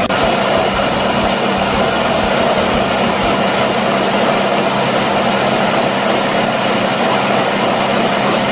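Electric mini food chopper switching on abruptly and running steadily, its motor humming and its blades whirring through a liquid marinade of soy sauce, vinegar, garlic, onion, ginger and lemongrass.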